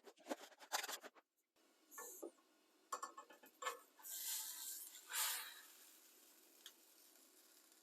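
Faint scraping and light taps of a utensil against a frying pan in several short spells, with a longer hiss about four to five and a half seconds in.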